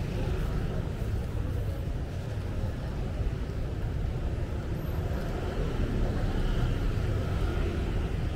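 Steady street traffic noise: a continuous low rumble of passing motor vehicles on a busy city road.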